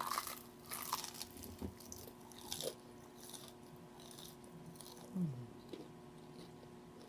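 A person biting and chewing crunchy fried food close to the microphone, with irregular crisp crunches mostly in the first few seconds. About five seconds in comes a short low falling hum from the throat.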